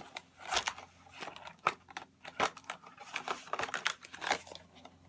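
Plastic toy packaging crinkling and clicking in short, irregular bursts as it is handled.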